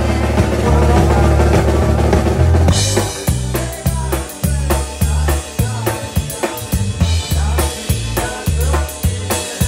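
A live rock band playing, with the drum kit taking over about three seconds in: steady snare and bass drum hits with bright cymbal crashes in an even beat.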